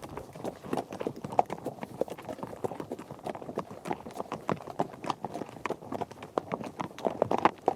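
Horses galloping: a dense, irregular run of overlapping hoofbeats, with a few louder hits near the end.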